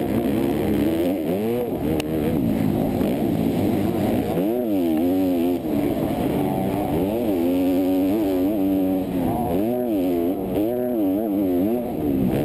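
Motocross bike engine heard from a camera mounted on the bike, revving up and dropping off again and again as the rider throttles on and shuts off around the dirt track. There is a single sharp click about two seconds in.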